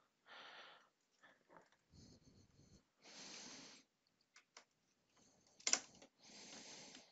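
Faint breathing close to the microphone, three soft breaths, with a few light clicks of a Torx screwdriver turning a screw into the HMI panel of a protection relay. The sharpest click comes about three-quarters of the way through.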